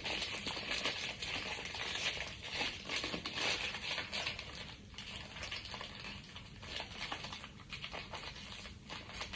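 Crinkling and rustling of blind-box packaging being handled and opened, a dense run of small crackles with some tearing.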